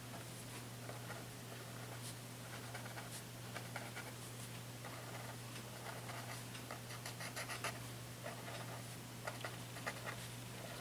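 Paper tortillon rubbing graphite into paper in short scratchy strokes, blending the pencil shading, over a steady low hum.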